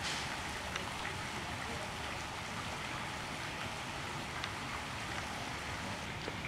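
Steady hissing outdoor background noise with a few faint clicks scattered through it.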